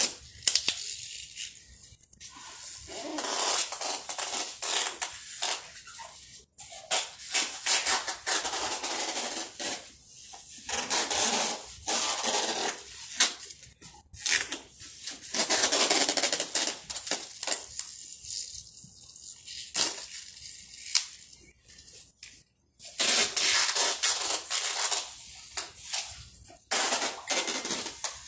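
Packing tape being pulled off the roll in long strips onto a large cardboard box, again and again with short pauses between.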